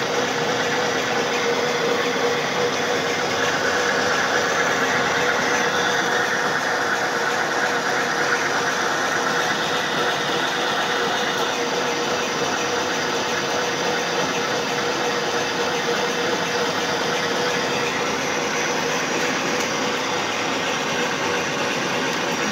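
Milling machine running under slow power feed, its end mill cutting into a steel bushing: a steady machine noise with one constant tone throughout.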